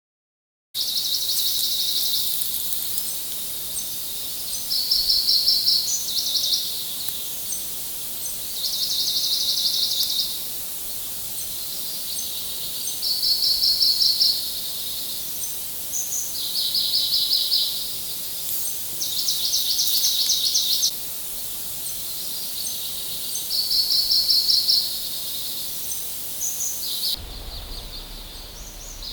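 Forest ambience: short, high, buzzy trills repeating every few seconds over a steady high hiss, with the background changing about 27 seconds in.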